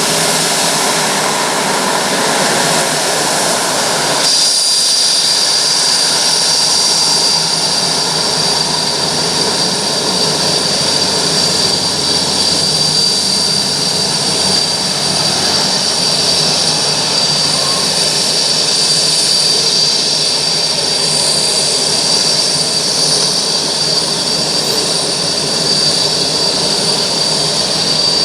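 Jet engines of a Boeing 787-9 running loud and steady. About four seconds in, a steady high-pitched whine comes in on top and holds.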